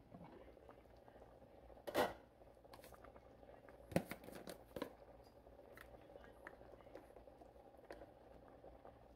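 Glass pot lid taken off a pot of simmering tomato sauce: a short scraping clatter about two seconds in, then a sharp knock about four seconds in as it is set down, followed by a few faint ticks from the bubbling sauce.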